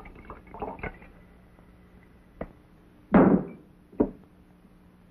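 Blows in a fistfight: a sharp knock, then a loud heavy thud about three seconds in and another knock a second later.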